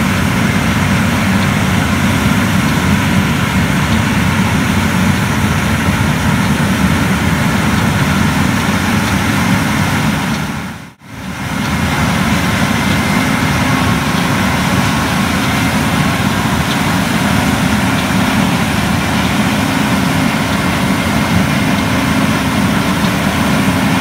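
Large diesel farm machinery running steadily under load, with a faint steady whine above the engine noise. The sound drops out briefly about eleven seconds in and comes back unchanged.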